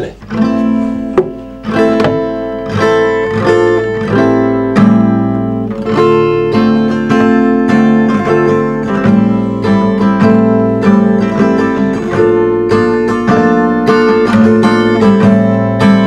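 Acoustic guitar played solo, chords strummed and picked in a steady rhythm.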